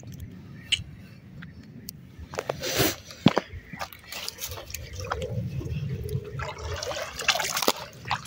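Shallow lake water splashing and trickling as a hand works in it around a wire keep net, with a few small clicks and knocks in the first seconds; the splashing is heaviest in the second half.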